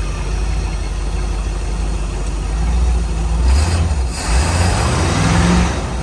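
Carbureted V8 inboard boat engine idling with a steady low hum. From about halfway through, a louder rush of intake air through the carburetor comes in over it, the vacuum hiss that is normal as air is drawn in to mix with the fuel.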